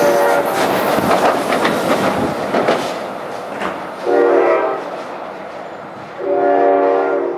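NJ Transit commuter train running away down the line, its wheels clattering over the rails and fading over the first few seconds. Its multi-chime air horn then sounds twice, a short blast about four seconds in and a longer one near the end.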